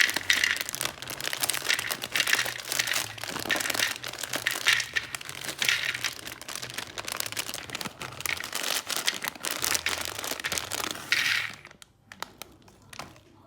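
Dense crinkling and crackling from snacks being handled, stopping about 11.5 seconds in. A faint low hum runs underneath.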